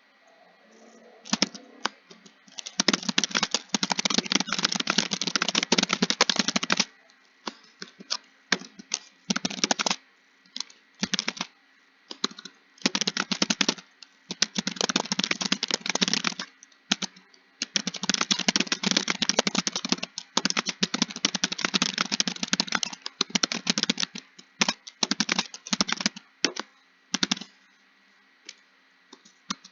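Typing on a computer keyboard: fast runs of keystrokes lasting a few seconds each, broken by short pauses and single key presses, trailing off about two seconds before the end.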